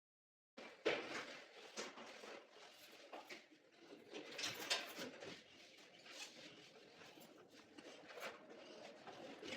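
Quiet handling noises: faint rustling with scattered light taps and clicks, the sharpest just under a second in. It follows a brief moment of dead silence.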